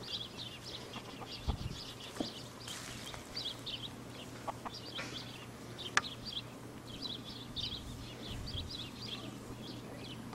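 Birds chirping: many short, high calls repeating throughout, with one sharp click about six seconds in.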